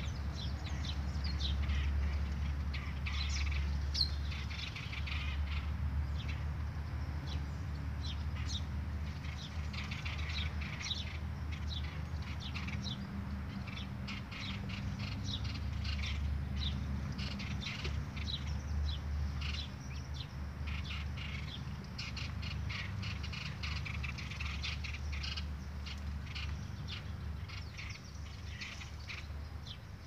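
A flock of small birds chirping: many short, quick calls overlapping, with a steady low rumble underneath.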